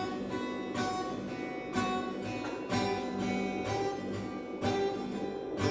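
Acoustic guitar strummed in a steady rhythm, with a full chord struck about once a second and left ringing between strokes. This is the instrumental opening of the song, before the singing begins.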